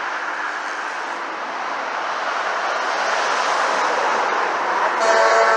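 Highway traffic passing close by: the steady rush of trucks going by, building slightly. A pitched tone, likely a truck's engine or horn, comes in near the end.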